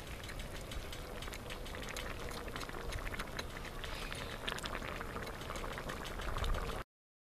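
Rice stew simmering and bubbling in a steel plow-disc pan over a propane burner, with a metal spatula stirring and scraping through it. The sound cuts off suddenly near the end.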